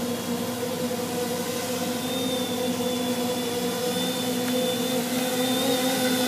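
Custom-frame quadcopter's four electric motors and propellers buzzing steadily as it hovers low over the grass, with a thin high whine joining about two seconds in. The buzz grows slightly louder toward the end.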